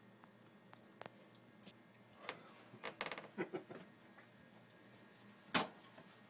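Quiet scattered scuffs and clicks of two dogs' paws and claws moving on a thin layer of snow over a deck, with a sharper knock near the end.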